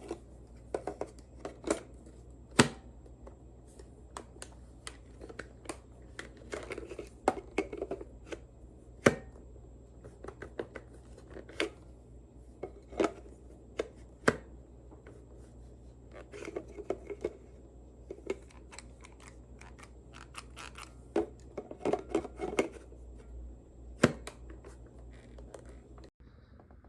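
Objects being handled close to the microphone: irregular sharp clicks and taps with short spells of rustling and scraping, over a faint steady hum.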